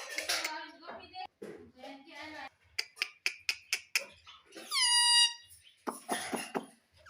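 Ringneck parrot vocalising: a voice-like babble, then a quick run of about ten sharp clicks, then one loud long call that drops in pitch and holds, and a short burst of harsh chatter near the end.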